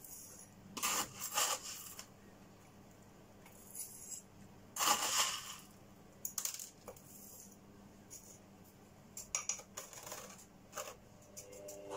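Small gravel top dressing scooped with a metal spoon and poured into a terracotta pot, the pebbles clattering in several short bursts.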